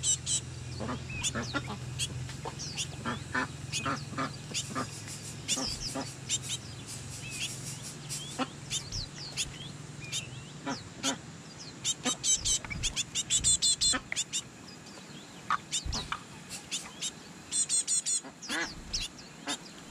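Domestic ducks and other fowl calling in many short, repeated calls, with runs of rapid calls about two-thirds of the way in and near the end. A low steady hum underlies the first half and fades out.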